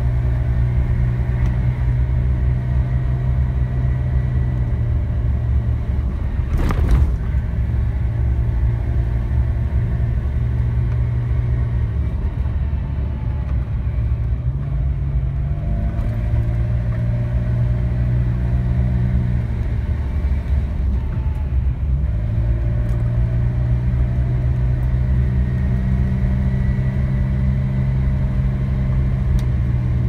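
Car engine running with steady road and tyre rumble, heard from inside the car; the engine note drops and then climbs again twice, about twelve and twenty seconds in, as the car slows and pulls away through the bends. A single sharp knock comes about seven seconds in.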